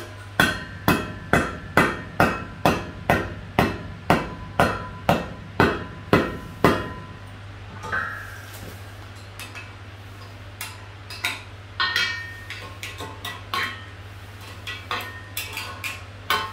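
Hammer blows on the steel foot plate of a welded anvil-stand leg: about fourteen evenly spaced strikes, a little over two a second, each with a short metallic ring, stopping about halfway through. Scattered lighter metal knocks and clinks follow.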